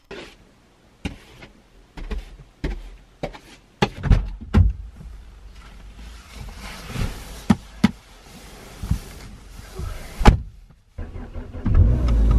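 Someone getting into a car: a string of thuds, clicks and nylon-jacket rustling as they climb into the seat, with one sharp knock, likely the door shutting, about ten seconds in. A steady low hum starts near the end.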